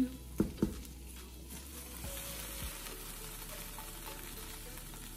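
A spoon stirring and mashing thick cornmeal porridge in a pot on the stove, with two sharp knocks against the pot about half a second in, then a faint steady sizzle as the porridge cooks.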